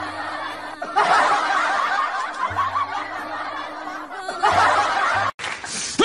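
Rapid snickering laughter in long stretches, with background music underneath.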